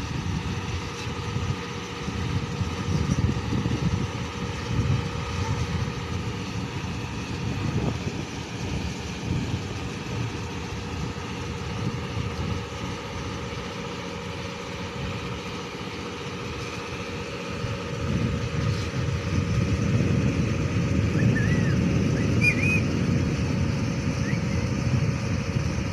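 Tug boat engine running steadily, with a low unsteady rumble that grows louder about two-thirds of the way in.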